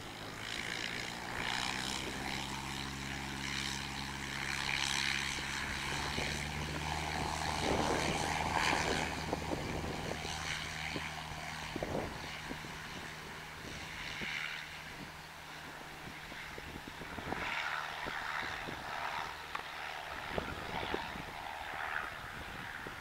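Single-engine piston propeller plane's engine running steadily, then opening up to full power about six seconds in for the take-off run: the engine note rises and then fades as the plane pulls away.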